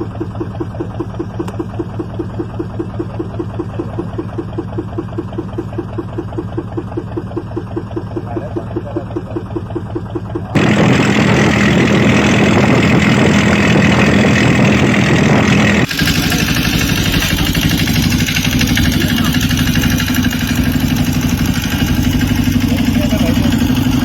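An engine running with a steady, even pulse. About ten seconds in the sound jumps abruptly to a louder, rougher engine noise, and it changes abruptly again about five seconds later.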